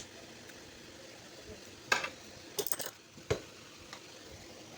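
Small metal parts being handled, giving sharp clicks and clinks: one at the start, then several close together in the second half.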